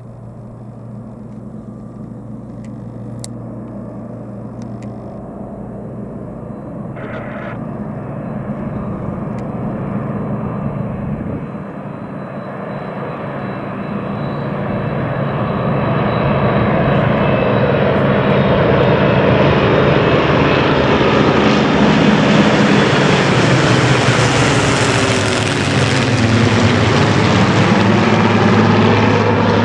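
Formation of Spitfire and Hurricane piston-engined fighters droning in, growing steadily louder as it approaches and passing overhead near the end, the engine pitch dropping as it goes by.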